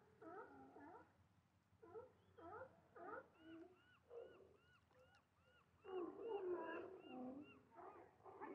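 Faint chorus of seals calling across the water: many overlapping pitched barks and moans that rise and fall, loudest about six seconds in. A thin, short high note repeats about three times a second from about three seconds in.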